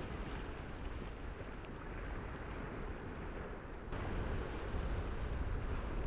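Surf washing in over shallow water, with low wind rumble on the microphone. A faint click about four seconds in, after which the noise is a little louder.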